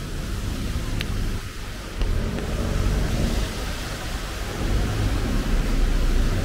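Rainy city street: the low rumble of car traffic on wet road under a steady hiss, swelling about two seconds in as a vehicle draws close. A single sharp click about a second in.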